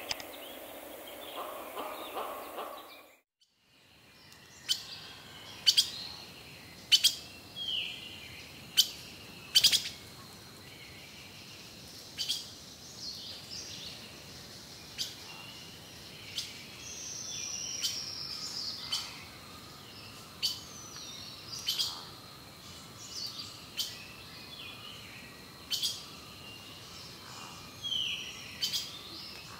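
Forest birds calling: short sharp chip notes roughly once a second, with falling whistled calls between them and a faint steady high tone behind. For the first three seconds, before a cut, a different, lower-pitched sound is heard.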